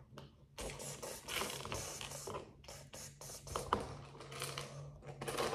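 Small plastic LEGO bricks clicking and scraping against each other as a hand rummages through a loose pile of them.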